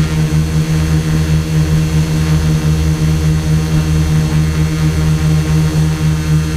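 Quadcopter's motors and propellers buzzing steadily while it hovers in loiter mode, heard close up from its onboard camera. The tone beats gently a few times a second.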